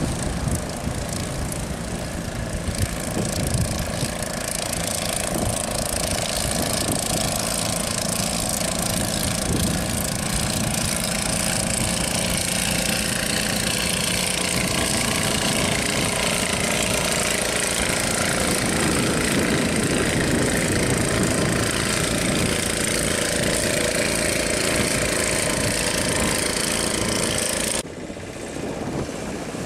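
Outboard motors of small fishing boats running steadily over the noise of breaking surf. The sound drops suddenly near the end.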